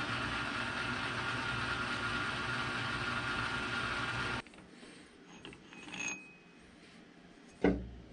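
Metal lathe running steadily while a drill in the tailstock chuck bores into a bar held in the chuck. The sound cuts off abruptly about four seconds in, leaving a quiet shop with a few faint clinks and a single thump near the end.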